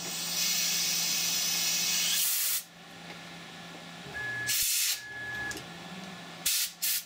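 Compressed-air nozzle blowing onto the cutting tool in a CNC mill, hissing in bursts: one long blast of about two seconds, a short one near the middle, and two quick puffs near the end, over the steady hum of the running machine. The air drives cutting oil down into the pin hole to keep the cut lubricated and clear chips from the flutes.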